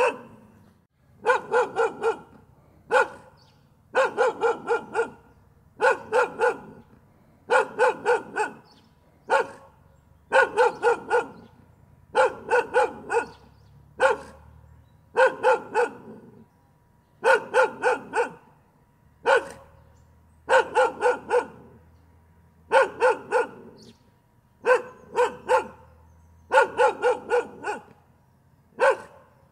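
A dog barking continuously in quick volleys of three to five barks, each volley about a second long, repeating every couple of seconds, with now and then a single bark between volleys.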